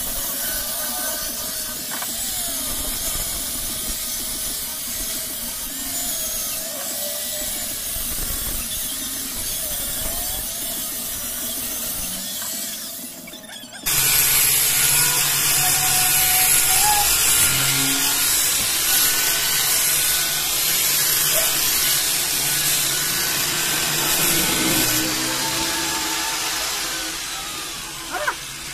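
Electric angle grinder with a sanding disc running against a wooden plank, sanding the surface smooth: a steady motor whine with the disc rasping on the wood. It becomes much louder about halfway through.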